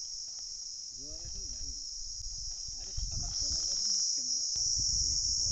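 A steady, shrill, high-pitched chorus of ঝিঁঝিঁ insects, unbroken throughout, over a low rumble that grows from about three seconds in.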